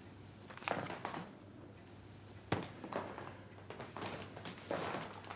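A few light, scattered taps and knocks over faint room tone.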